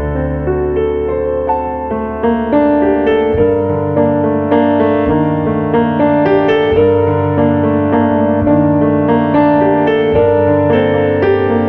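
Background piano music: a gentle melody of evenly paced notes over low sustained bass notes.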